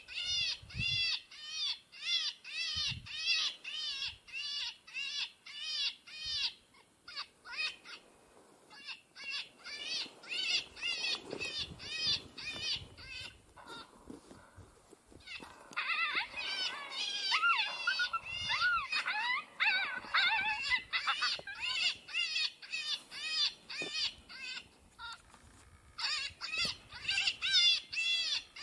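Lucky Duck Revolt electronic predator call playing a recorded animal distress sound: short, high-pitched cries repeating about three a second, with a few brief pauses. Midway through, the cries turn into a denser, wavering run before the steady cadence returns.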